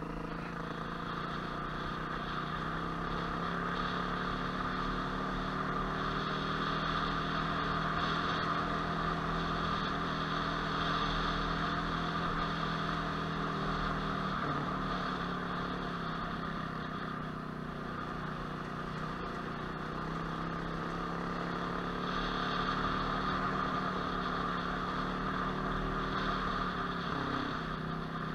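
Motorcycle engine running steadily at low, even revs while riding a rough dirt lane, with a brief dip in pitch about halfway through.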